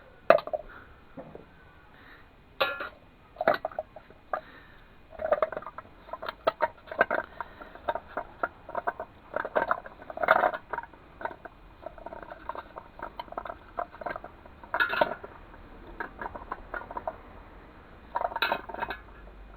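Sand, cement and plaster of Paris mix being stirred by hand in a container: irregular scraping and knocking strokes, coming in uneven bursts.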